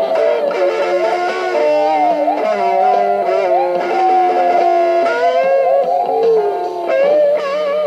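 Electric guitar playing a lead line of sustained notes with string bends, wobbling in wide vibrato near the end.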